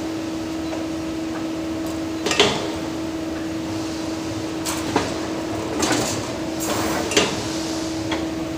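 CNC wire bending machine running: a steady motor hum with a held tone, with sharp metallic clanks from its mechanism every second or so. The loudest clank comes about two and a half seconds in.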